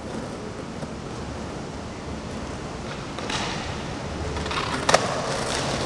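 Skateboard wheels rolling on concrete pavement, the rolling noise growing louder about three seconds in, with a single sharp clack near the end.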